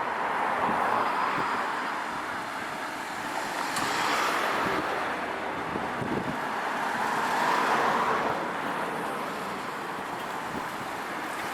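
Road traffic: vehicles passing one after another, their noise swelling and fading about one, four and eight seconds in.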